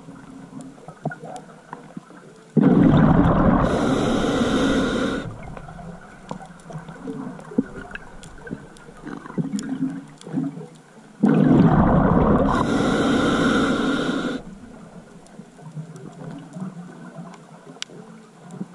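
Scuba diver's exhaled breath bubbling out of the regulator underwater, twice, each about three seconds long and about nine seconds apart, with faint scattered ticks in between.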